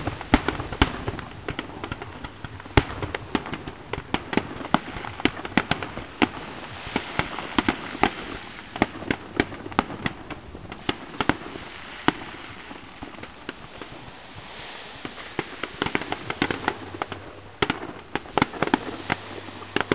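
Fireworks display: a continuous barrage of sharp bangs from aerial shells bursting, several a second, over a bed of crackle and rumble.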